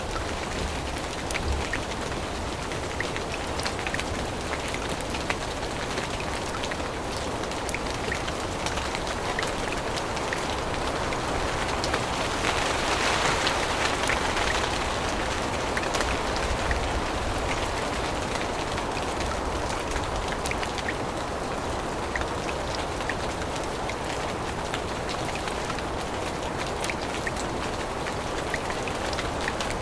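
Steady rain falling on forest leaves, with many small drops ticking on them; it grows louder for a few seconds about halfway through, then eases back.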